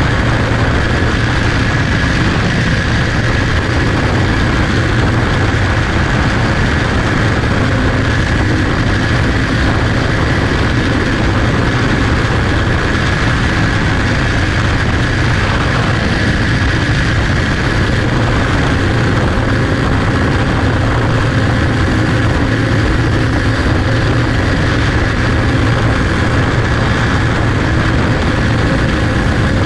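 Onboard sound of a small clone-engine racing car running at race speed: a loud, steady engine drone at an even pitch, with rushing noise over it.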